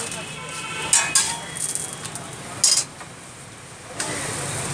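Cooking utensils knocking and clattering at a paratha griddle stall: a sharp knock about a second in, another just after, and a third near the middle, over a steady hiss of frying on the hot griddle. The hiss drops away for about a second and comes back abruptly near the end.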